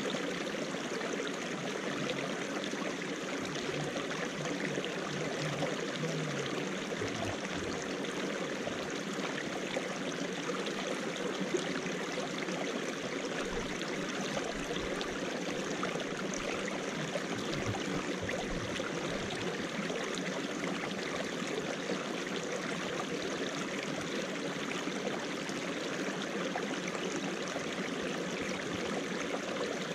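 Small rocky mountain stream of ice meltwater trickling and burbling over and between stones, a steady, unbroken water sound.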